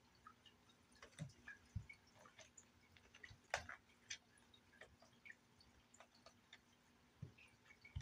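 Faint, scattered taps, clicks and light thumps of cats' paws and claws on a carpeted cat tree as two cats play-fight, the loudest knock about three and a half seconds in.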